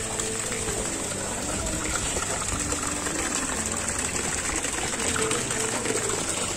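Stone fountain's water running down the pebble wall and splashing into its basins: a steady, even wash of water noise.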